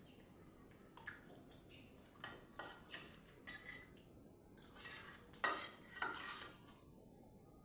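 Spoon clinking and scraping against a dish in a string of irregular knocks and short scrapes, the loudest a little past halfway.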